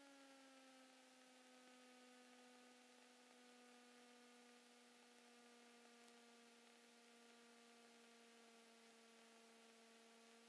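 Faint, steady drone of a Cessna 172 Skyhawk XP II's engine and propeller heard through the aircraft intercom, at reduced power during the landing. It drops a little in pitch right at the start and then holds one even note.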